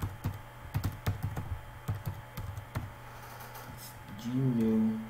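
Typing on a computer keyboard: quick, irregular key clicks. Near the end a voice briefly holds a short hum.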